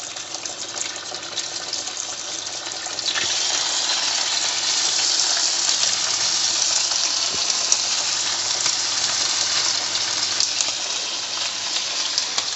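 Chicken satay skewers sizzling in hot oil in a frying pan as more are laid in by hand. The sizzle gets louder about three seconds in.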